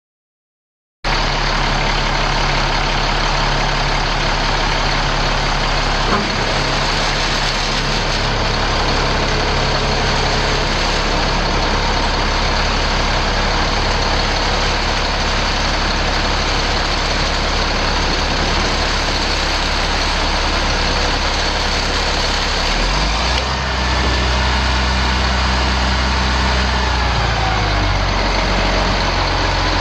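2004 International 7400 dump truck's International DT530 8.7 L inline-six diesel engine idling steadily. About 23 seconds in, its low rumble shifts and grows a little louder.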